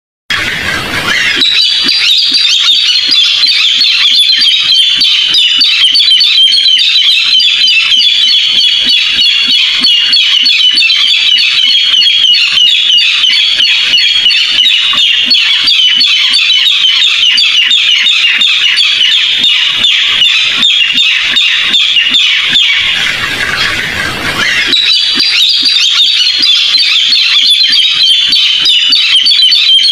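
Barred rail (tikling) calling: a loud, unbroken run of fast, high, repeated notes, many per second. About three-quarters through, the calls drop briefly under a short rush of noise, then carry on.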